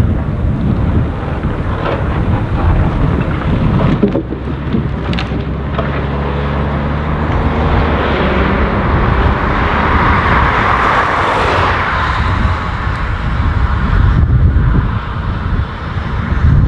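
Volvo L180F wheel loader's diesel engine running while it works. There are a few sharp knocks about four to five seconds in, and a rushing noise swells and fades about ten to twelve seconds in.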